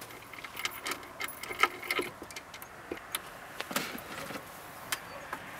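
Scattered clicks, knocks and light metallic rattling as a hinged wooden fold-down table is set in place and a portable camp stove is lifted out of its drawer onto it.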